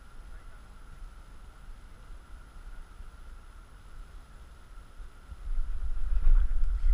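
Wind rumbling on the camera's microphone, gusting much louder about five seconds in, over a faint steady high-pitched tone.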